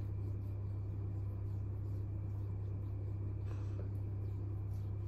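Faint rubbing of hands over facial skin as product is massaged in, over a steady low hum.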